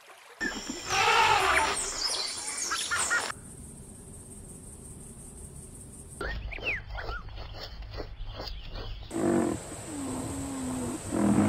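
A run of separate animal calls: loud calls that bend in pitch for the first three seconds or so, then, after a quieter gap, a stretch of high chirps and clicks, and near the end low calls with a short gliding tone.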